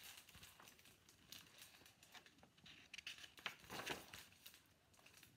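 Paper picture book being handled and its pages turned: soft rustling and crinkling of paper and its glossy cover, with the loudest crinkles about three and a half to four seconds in.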